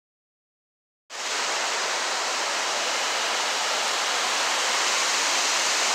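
Total silence for about a second, then the steady rushing of water cascading down rock ledges of a waterfall, starting abruptly.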